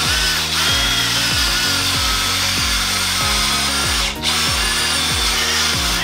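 Cordless drill spinning a wire wheel brush against the inside of a steering knuckle's strut bore: a steady, loud scraping whir as it scrubs the bore clean, with a brief break about four seconds in.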